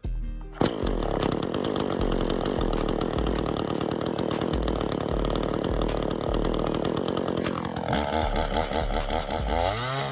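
Two-stroke chainsaw, likely the Echo CS400, running hard at high revs. It starts abruptly about half a second in, and its pitch swings near the end. A music bass beat runs underneath.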